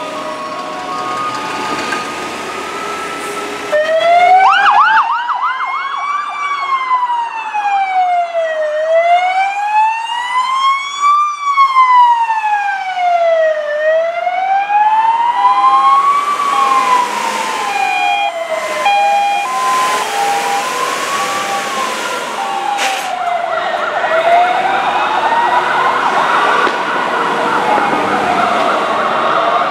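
Fire engine sirens on an emergency run. A slow electronic wail starts about four seconds in and rises and falls roughly every five seconds. A second, pulsing siren tone joins in the middle, and more sirens overlap near the end.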